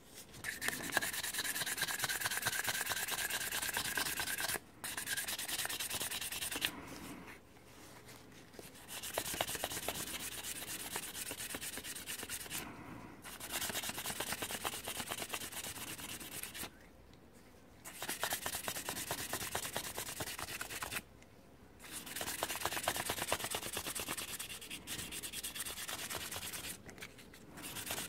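P800 wet-and-dry abrasive paper, used dry, rubbed by hand around a Yamaha TDR250 front brake caliper piston. It goes in stretches of rapid strokes broken by about half a dozen short pauses, with a squeaky tone over the first few seconds. The sanding takes the sharp edges off the piston's corroded grooves so they won't cut the new seals.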